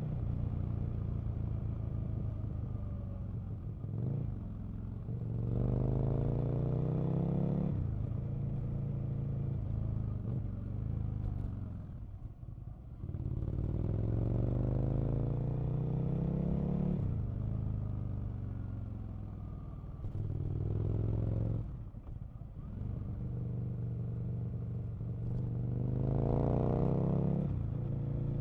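Aprilia RSV Mille sport bike's V-twin engine pulling hard and backing off several times. Its pitch climbs under throttle and drops away suddenly when the throttle closes or it shifts, around 8, 12 and 22 seconds in.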